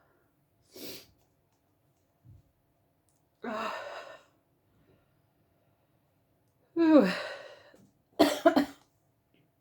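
A woman coughing and sniffing from inhaled ground pepper: a few separate breathy coughs with pauses between, then a quick run of about three coughs near the end.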